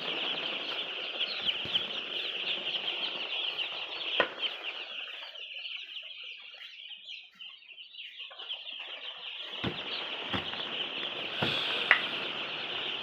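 A flock of poultry-house chickens calling together in a dense, high-pitched chorus. The chorus thins out for a couple of seconds midway and then returns, with a few sharp knocks scattered through it.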